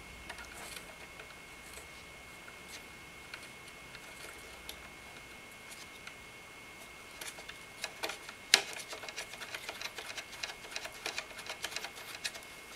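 Small metal clicks and ticks as CPU-cooler standoffs are screwed by hand onto the backplate screws around the CPU socket, sparse at first, then more frequent from about seven seconds in, with one sharper click about eight seconds in.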